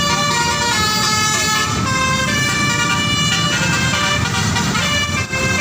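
Bus "telolet" multi-tone musical horn playing a tune: several steady horn notes at once, changing pitch in steps every second or so, over a low rumble.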